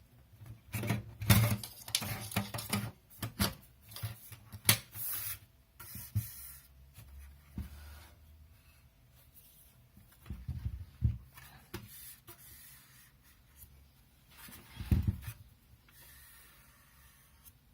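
Handling noises from a QNAP TS-253A NAS's metal enclosure: scattered clicks and knocks with rubbing and scraping, densest in the first few seconds, again about ten seconds in, and one louder knock about fifteen seconds in.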